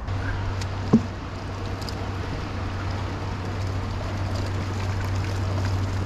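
Canal water splashing and churning as a heavy rusted metal object is hauled up the bank on a magnet-fishing rope, with one sharp knock about a second in, under a steady low hum.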